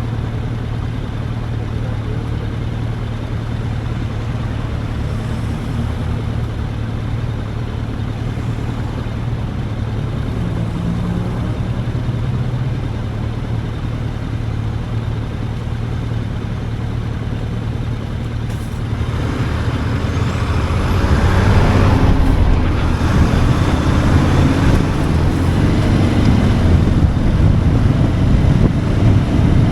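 Motorcycle engine running with a steady low hum. About two-thirds of the way through, a louder rush of wind noise on the microphone builds up and stays, as the bike gets going faster.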